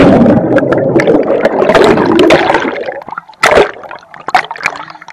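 Pool water churning and bubbling loudly around a camera's waterproof case held underwater, then a short splash about three and a half seconds in as the camera comes up to the surface, with a few drips and small splashes after it.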